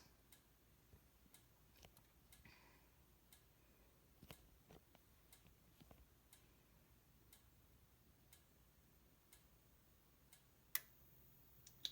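Near silence: room tone with faint, evenly spaced ticks about once a second, and one sharper click near the end.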